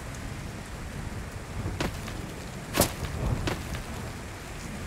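Storm noise of heavy rain and hail beating on the house, with three sharp cracks of large hailstones striking and punching through the roof and ceiling, the loudest a little under three seconds in.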